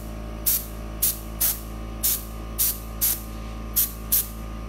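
Compressed-air sprayer firing short, sharp hissing puffs of glaze, about two a second at an uneven pace, run from an air compressor at about 25 PSI. A steady hum runs underneath.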